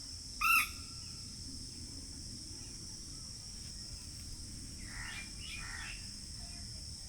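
Steady high-pitched insect drone with birds calling over it: one short, loud call about half a second in, then two harsher calls around five seconds in, over a low steady rumble.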